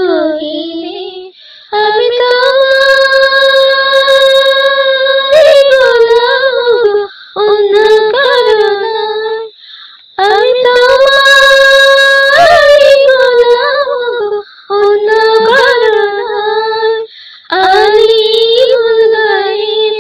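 A high female voice singing a slow devotional song, holding long steady notes in phrases of a few seconds with short breaks between them.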